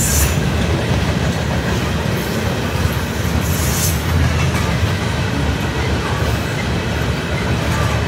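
Loaded steel-coil freight cars rolling past: a steady rumble of steel wheels on the rails, with a brief high hiss about three and a half seconds in.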